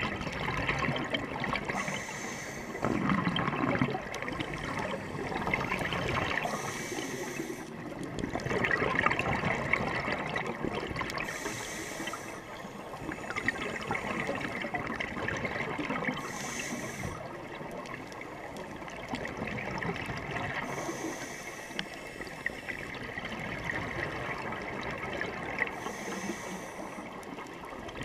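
Scuba breathing underwater through a regulator: a short hiss on each inhale every few seconds, with a gurgling rush of exhaled bubbles in between.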